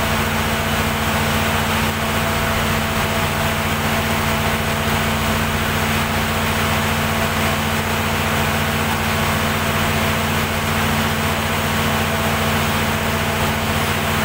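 Perkins diesel generator set running at steady speed, a constant engine hum with several fixed low tones and no change in pitch or level.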